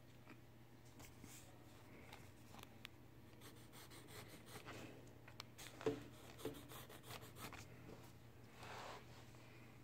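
Near silence with faint rubbing and scratching, as of hands moving over paper and the phone, and two soft taps about six seconds in, over a low steady hum.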